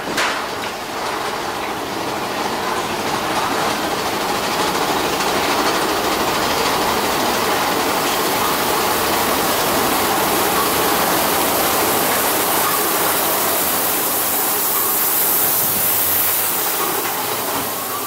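Mine-train roller coaster running along its track: the cars rattle and rumble in a steady rush that grows louder over the first few seconds, with a sharp clank at the start.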